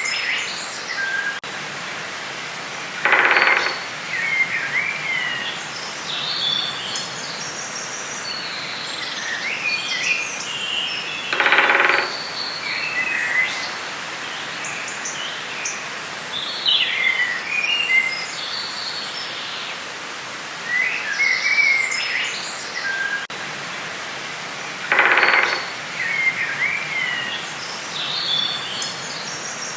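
Forest ambience: several songbirds chirping and warbling over a steady background hiss. A louder, lower, harsher call sounds three times, each about half a second long.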